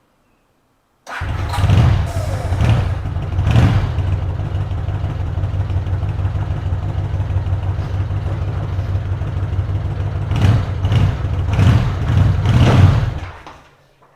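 Honda CX500 liquid-cooled V-twin motorcycle engine running. It cuts in abruptly about a second in, is blipped a few times, idles steadily, is revved several times again near the end, then dies away.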